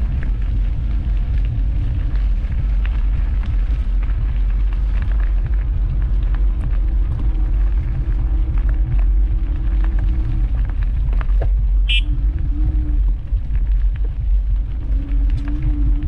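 Wind rumbling on a bike-mounted action camera's microphone while riding, a loud, steady low rumble with road and tyre noise under it. There is a brief high chirp about twelve seconds in.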